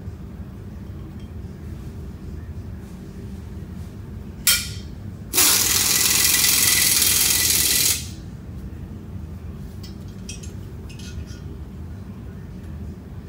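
A short puff and then a loud hiss of compressed air lasting about two and a half seconds, as from a shop air blow gun. A steady low shop hum runs underneath.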